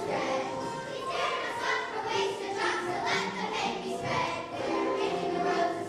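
A group of children singing together over a musical accompaniment.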